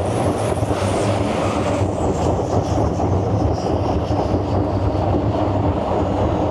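A 300–400 hp turbo diesel longtail boat engine running hard at full speed, a steady deep drone under the rush of water spray and wind, during a fast pull. A faint high whine slowly falls in pitch through the middle.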